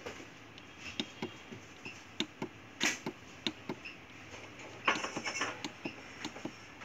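Light, irregular clicks of a finger pressing the keypad buttons on a BMS DIGI IFT-Pro+ interferential therapy unit, with a quick flurry of presses about five seconds in.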